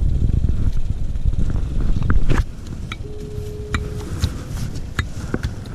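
Wind buffeting the microphone, heavier in the first couple of seconds, with scattered small clicks and knocks from a crab pot, net and crabs being handled. A short steady tone sounds for about a second near the middle.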